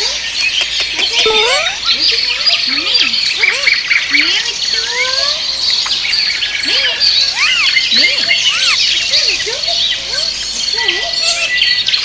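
Many birds chirping and calling together, a dense stream of short rising and falling chirps over a steady high-pitched trill.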